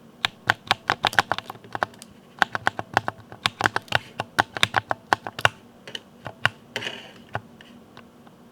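Mechanical keyboard with Cherry MX Speed switches being typed on very fast: a dense run of rapid key clicks that thins out about two-thirds of the way through, with a brief rustle near the end before the keys fall quiet.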